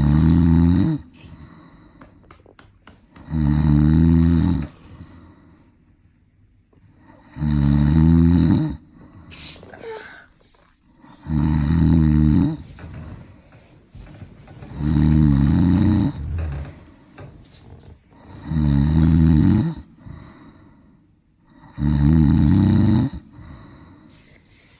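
A man snoring loudly in sleep: seven long, deep snores, each about a second long, coming evenly about every three and a half to four seconds, with quieter breathing between them.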